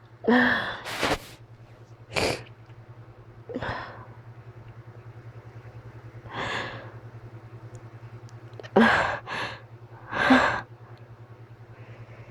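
A person sneezing about half a dozen times, each a short sharp burst of breath with gasps in between: an allergic sneezing fit brought on by cats. A low steady hum runs underneath.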